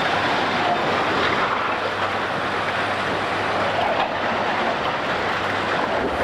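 Loud, steady, dense mechanical racket of heavy construction machinery, with no clear pitched tone.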